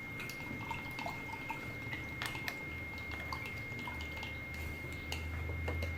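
Faint drips and light clicks of slime activator solution being spooned into a cup of glue solution and stirred.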